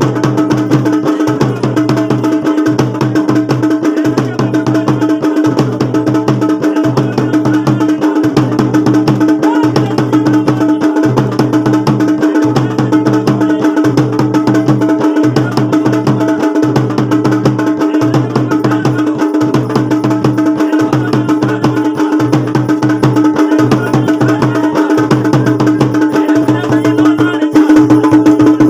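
Traditional Garhwali drumming, dhol and damau, playing a steady repeating rhythm for mandan dancing, the beat cycle coming round about every second and a half over a steady held tone.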